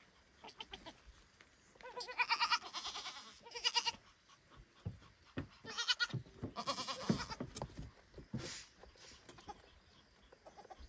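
Goat kid bleating loudly for its mother, in two bouts of calls about four seconds apart, with scattered light knocks in between.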